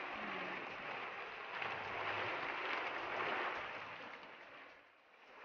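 Garlic sausages sizzling on a grill: a steady crackling hiss that fades a little near the end.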